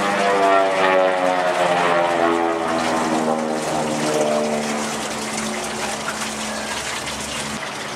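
A Beechcraft 18's twin radial engines and propellers droning through a pass. The pitch of the drone falls steadily as the plane goes by, then levels off and grows a little fainter near the end.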